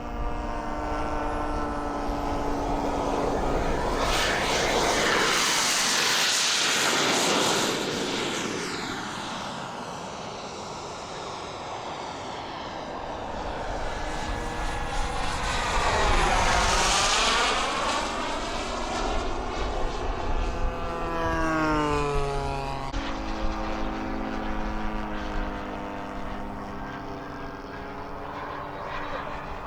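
Radio-controlled model airplanes flying past. Their engine pitch sweeps up and down as each one goes by, loudest on two close passes, one about five seconds in and one a little past the middle.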